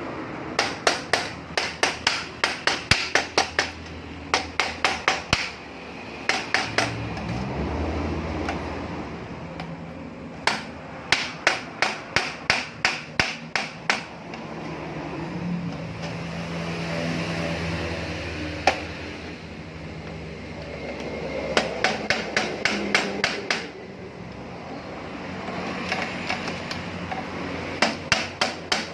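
Hammering in quick runs of sharp blows, about four a second, stopping and starting several times, while a noodle machine is being assembled. Between the runs a steady low hum rises and falls.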